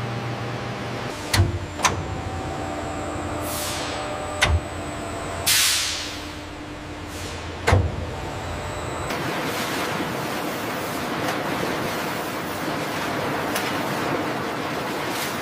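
Leather-processing machinery: a steady hum broken by several sharp clunks and two bursts of steam-like hissing, the second loud and fading over about a second. From about nine seconds in, a steady rushing hiss takes over.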